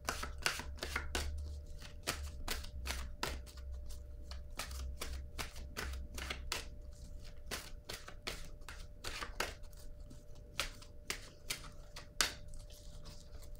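A deck of oracle cards being shuffled in the hands, the cards clicking and sliding against each other in quick, irregular snaps, about two or three a second. A faint steady low hum runs underneath.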